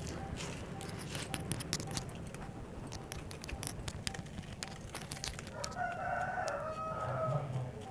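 Dry red soil crumbled and rubbed between the hands, a run of small gritty clicks and crackles. About six seconds in, a rooster crows once, lasting about two seconds.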